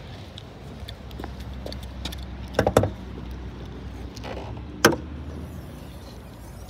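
Bonnet of a car being opened by hand: a short clatter of clicks about two and a half seconds in, then a single sharp click near five seconds as the bonnet catch releases, over a low steady background rumble.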